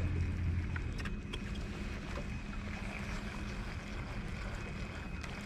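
Bow-mounted electric trolling motor running with a steady low hum and a thin whine, with a few faint clicks from hands working a baitcasting reel and line.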